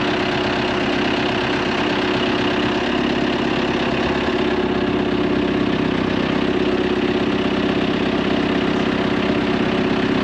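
Engine of a forklift-type lifting machine idling steadily.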